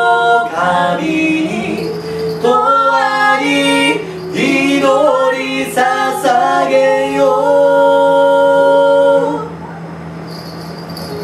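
Live singing by a woman with a man's voice alongside, ending on a long held note about nine seconds in. After it the level drops and a light jingling begins near the end.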